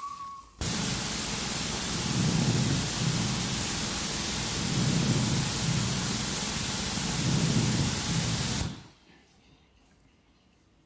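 A steady high tone breaks off and a loud burst of static-like white noise starts abruptly, with a low rumble swelling and fading every couple of seconds underneath. The noise cuts off about nine seconds in, leaving near silence with a few faint ticks.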